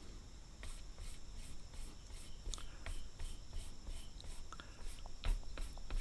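Faint scraping as a steel broadhead edge is sharpened by hand, with a few light clicks near the end. Steady, rhythmic insect chirping sounds in the background.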